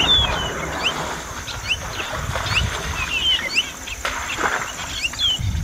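Small birds chirping in quick, short rising and falling notes over a steady high-pitched buzz. Under them is the rustling, tearing crackle of grass being pulled up by an African elephant's trunk, loudest about four and a half seconds in.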